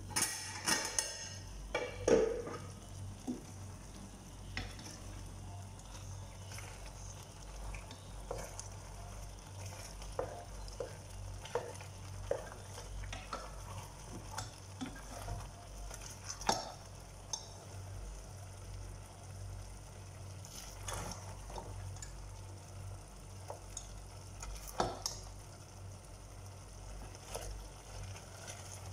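Chicken feet cooking in a thick sauce in a stainless steel pot, stirred with a spatula: a steady hiss from the cooking sauce under repeated light knocks and scrapes of the utensil against the pot. A louder metal clatter about two seconds in, as the pot lid comes off.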